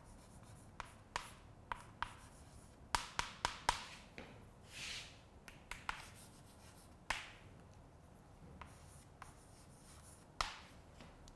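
Chalk writing on a blackboard: sharp taps as the chalk strikes the board, a quick run of them about three seconds in, and a longer scratchy stroke a little later.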